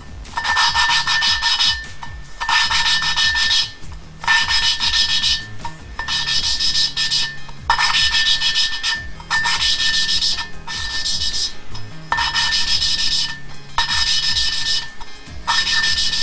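Valve being lapped into its seat in a cylinder head with a hand lapping stick and grinding paste: the valve face rasps against the seat in repeated back-and-forth strokes, each about a second long, with short pauses between.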